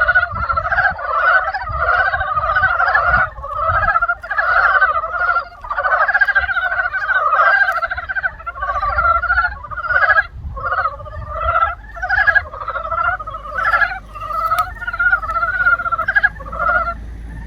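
A chorus of frogs calling: many short, pulsed croaks overlap one another, coming a couple of times a second. The calls grow more spaced out near the end.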